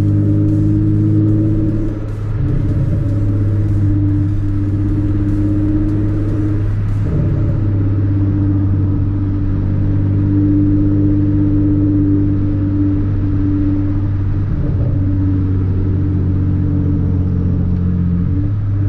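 A 2013 Hyundai Genesis Coupe's 3.8-litre V6 through an ISR race exhaust, heard from inside the cabin as it cruises at steady revs with a deep, even drone. There is a brief dip in the sound about two seconds in and small changes in throttle a few times after that.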